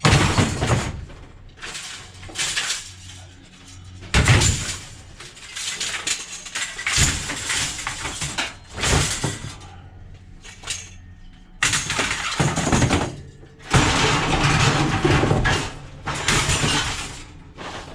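Loose scrap metal crashing and clattering as it is dumped onto a heap, in about seven separate bursts of one to two seconds each.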